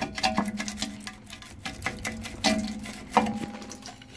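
Rusted parking-brake shoe being worked loose from the rear disc-brake backing plate of a 2003 Dodge Dakota. It gives a run of metal clicks and scrapes, with a few sharper clinks that ring briefly.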